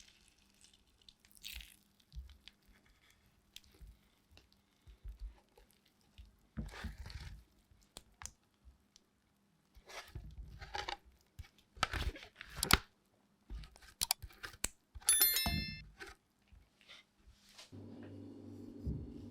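Irregular crunching, rustling and tapping of hand food preparation, with a few sharp knocks around the middle and a brief ringing tone a little after. A steady low hum sets in near the end.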